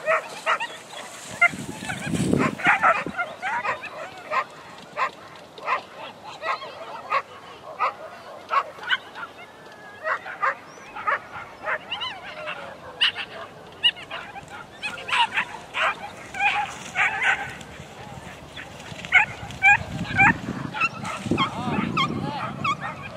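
Excited sighthounds barking and yelping over and over in short, high yelps, the keyed-up barking of dogs watching a lure chase.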